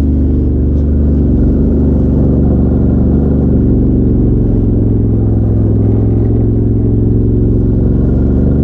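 Side-by-side UTV engine running steadily at low speed, heard from inside its open cab.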